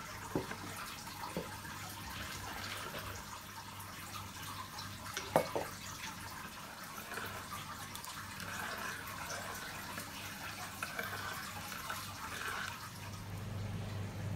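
A metal spoon stirring sugar into a thin liquid in a ceramic bowl: soft swishing of the liquid, with a few sharp clinks of the spoon against the bowl, the loudest about five seconds in.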